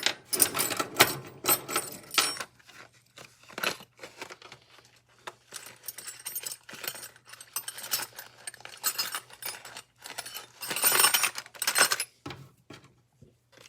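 Small metal parts of a miter saw clinking and rattling as they are handled and set down during disassembly, many short sharp clicks, with a louder run of rattling about eleven seconds in.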